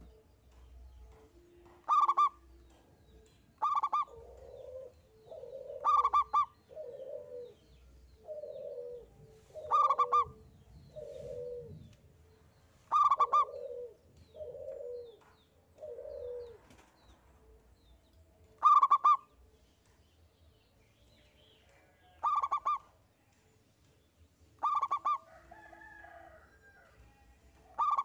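Zebra dove (perkutut) calling: short, loud high notes recur every two to four seconds, with runs of lower cooing notes between them through the middle stretch.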